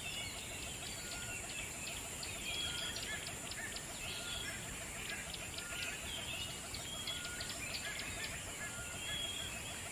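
Nature ambience: several birds chirping and whistling, one short note repeating every second or so, over a steady high-pitched background drone.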